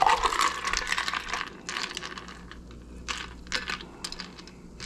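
A shaken cocktail is dumped from a stainless steel shaker tin into a glass: the cracked ice clatters out with the drink, loudest in the first second, then scattered clinks of ice as the last pieces drop in.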